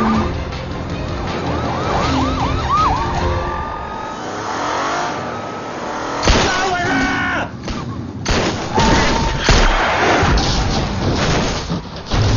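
Car-chase sound effects: police sirens wailing and yelping over car engines and road noise, then a string of loud crashes and impacts from about six seconds in as a car is sent flipping.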